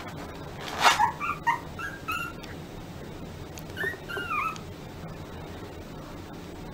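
Small white puppy giving short, high-pitched yips and whimpers that bend in pitch, in two clusters: one just after a brief loud noisy burst about a second in, and another around four seconds in.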